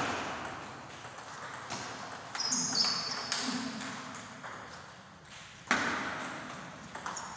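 Table tennis ball being hit back and forth, clicking off the paddles and bouncing on the table, with each hit echoing in a tiled hall. A sharper, louder hit comes nearly six seconds in.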